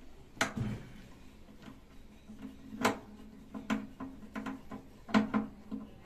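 Screwdriver clicking and scraping against a stiff screw on a microwave oven's sheet-metal back panel. There are about eight sharp metallic clicks at uneven intervals, each followed by a short low ring from the panel.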